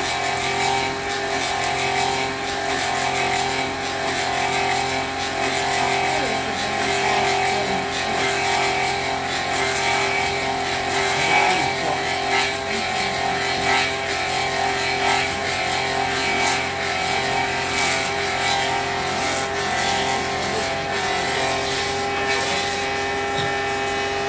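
Wooden-clog copy lathe running: a steady electric-motor hum under the rasp of the spinning cutter head cutting into the wood, with scattered ticks of flying chips. The cutter follows a model clog to carve out the same shape.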